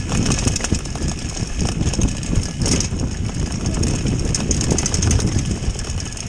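Mountain bike descending a rough dirt track at speed: a steady low rumble of tyres over the ground, with constant rattling clicks from the bike.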